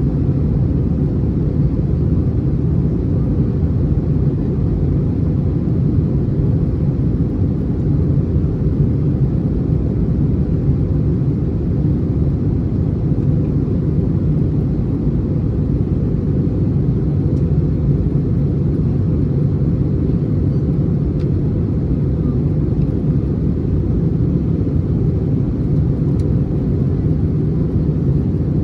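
Airbus A321 jet engines and airflow heard inside the passenger cabin as a steady, deep rumble.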